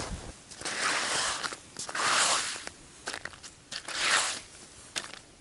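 Slush and ice chips being scraped away from around a freshly drilled ice-fishing hole: three main crunchy scrapes, with a few fainter ticks between them.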